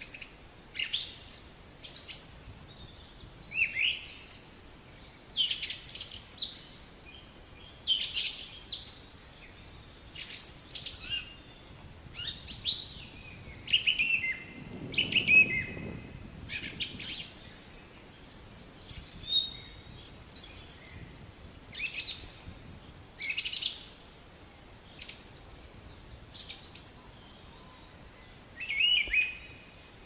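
Small songbirds chirping and singing: short, high, quickly falling phrases, about one a second.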